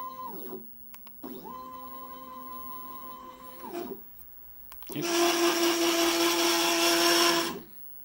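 Workbee 1050 CNC router's Y-axis lead-screw drive jogging twice with a steady whine that rises at each start and falls at each stop. About five seconds in, a much louder grinding rasp with a droning tone sets in for a couple of seconds and then cuts off. The grinding is the sign of dry Y-axis lead screws, which a bead of oil cured.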